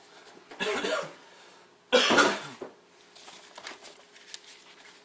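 A person clears his throat about half a second in, then gives one loud cough about two seconds in. After that there are only faint clicks of handling.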